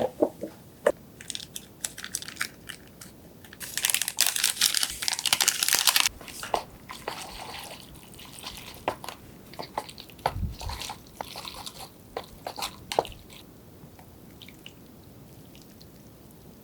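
Close-miked eating: crisp crunching bites and chewing, with sharp clicks scattered through. A long stretch of dense crunching comes about four seconds in.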